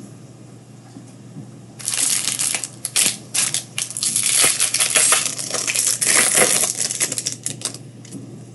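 Plastic trading-card packaging being torn open and crinkled, a dense crackling that starts about two seconds in and lasts about six seconds.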